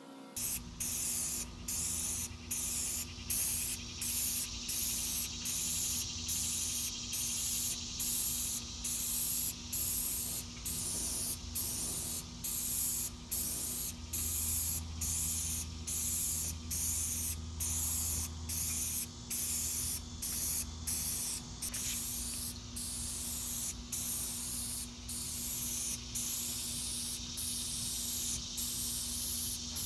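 Aerosol spray-paint can hissing as a coat of paint goes onto a door, the spray broken by short pauses about once a second between passes.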